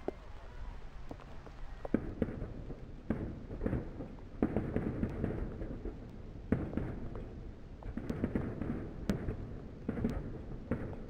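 Fireworks display: a run of sharp shell bursts starting about two seconds in, then dense crackling as red star shells break overhead.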